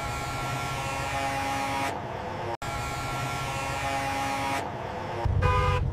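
Diesel engines of tanker semi-trucks running as the convoy rolls, a steady low rumble with an even droning hum. The sound cuts out for an instant about two and a half seconds in, and the rumble grows louder near the end.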